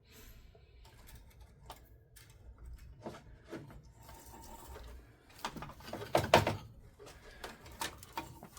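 Scattered small clicks and taps of hands handling a soldering iron, wire and connector, with a louder cluster of knocks about six seconds in.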